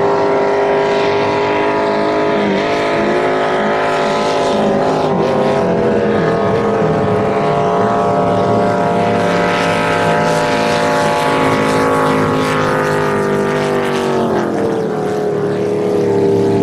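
Racing powerboat engines running at high revs: a loud, steady, many-toned engine note that wavers in pitch and sags near the end before picking up again.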